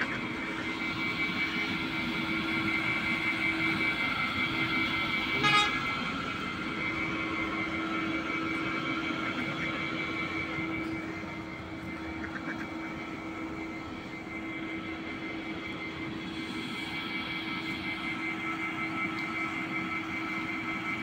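A steady mechanical hum and whine made of several held tones, one of them pulsing slightly. A brief sharp knock comes about five and a half seconds in.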